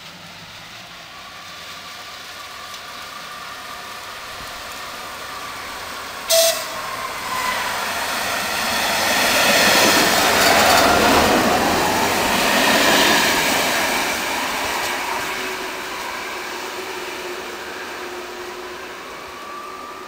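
Class 854 diesel-hydraulic locomotive train approaching and passing close by: a short horn toot about six seconds in, then the engine and the wheels on the rails grow loud as it goes past and fade away.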